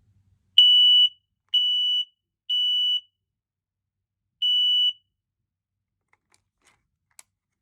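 Smoke alarm's piezo horn sounding its test: three loud, steady, high-pitched beeps of about half a second each, a pause, then a fourth beep starting the next round. This is the temporal-three evacuation pattern.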